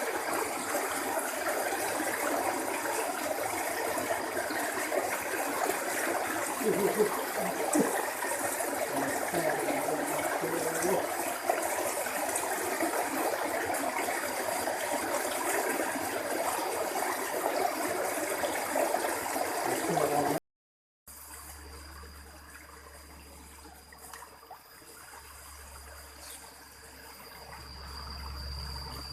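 Flowing water running steadily as an even rush. About two-thirds of the way in it cuts off suddenly, and a quieter background follows with a steady high-pitched tone and a low hum.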